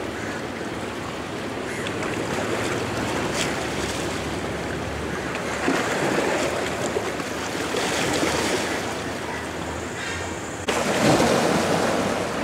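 Ocean surf washing onto the beach: a steady rushing that swells and eases with the waves, louder from about eleven seconds in.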